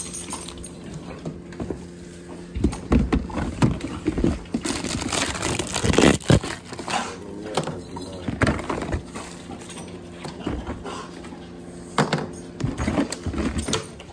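Rummaging in plastic storage drawers: packaging and gloves rustling, and the plastic drawers and packets knocking in irregular bursts, over a steady low hum.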